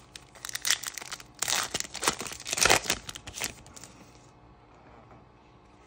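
Foil wrapper of a trading-card pack being torn open and crinkled in the hands: a dense crackling for about three seconds.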